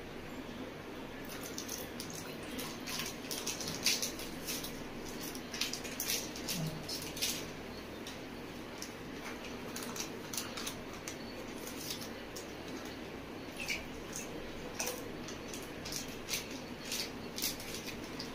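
Plastic milk packets crinkling and scissors snipping as the packets are cut open and emptied into a bowl: irregular crackles and clicks over a steady low hum.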